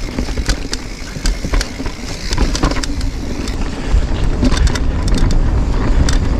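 Wind rumbling on the camera microphone while a Giant Reign mountain bike rolls down a rocky trail, the frame rattling with many sharp clicks and knocks. The noise grows louder from about four seconds in.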